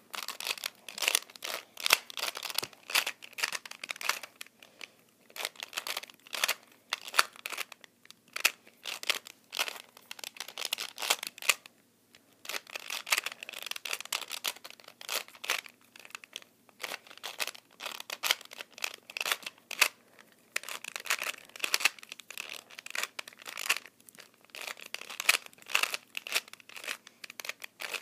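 A 2x2 Rubik's cube being turned fast during a speedsolve: rapid plastic clicking and clacking of the layers, in spurts with short pauses between them.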